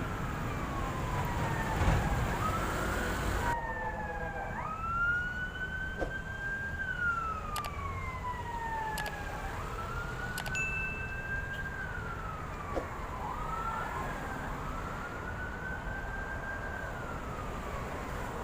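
Siren wailing, its pitch rising quickly and then falling slowly in repeated cycles of about four seconds. Background noise under it drops away suddenly a few seconds in.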